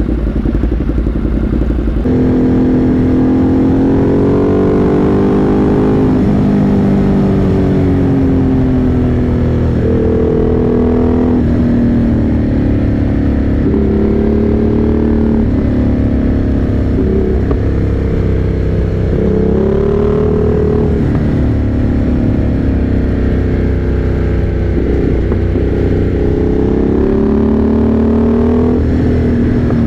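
Motorcycle engine under way, its note climbing and falling again and again as the bike accelerates and changes gear, over steady rushing road and wind noise.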